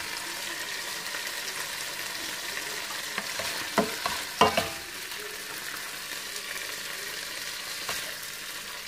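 Steady sizzle of food frying in a pan, with a few sharp knocks around the middle.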